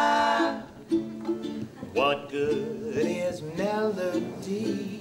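Acoustic swing trio playing: ukulele strumming chords with upright bass and snare drum. A man's voice holds one long loud note at the start, then sings short sliding phrases from about two seconds in.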